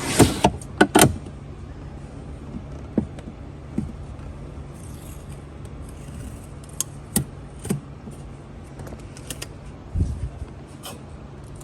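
Protective plastic film being peeled off new center-console trim: a quick run of crackles and rustles in the first second, then scattered clicks and short scrapes of handling plastic. A steady low hum runs underneath.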